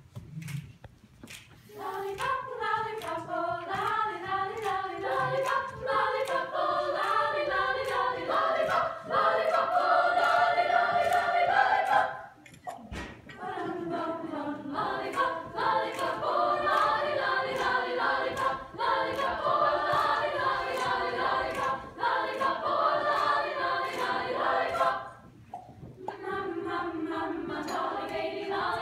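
Girls' children's choir singing a cappella in close harmony, with about two sharp clicks a second keeping the beat. The singing starts about two seconds in and breaks off briefly twice, once near the middle and once a few seconds before the end.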